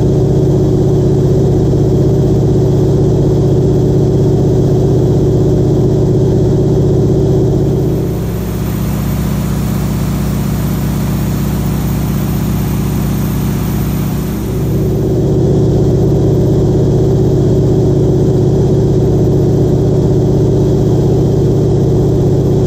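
Harvard trainer's radial engine droning steadily, heard from inside the cockpit. For about seven seconds in the middle it gives way to a hissier rush of wind and engine noise, then the steady cockpit drone returns.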